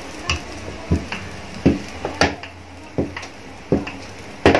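Irregular knocks and thumps, about nine of them, the last one loudest, as porotta dough is rolled out with a wooden rolling pin and worked by hand on an oilcloth-covered table.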